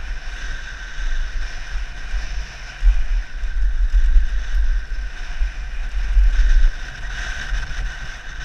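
Wind rushing and buffeting over a helmet camera's microphone as a mountain bike descends a dirt singletrack at speed, over the hiss and rattle of the bike rolling on the trail. The buffeting swells louder about three seconds in and again around six seconds.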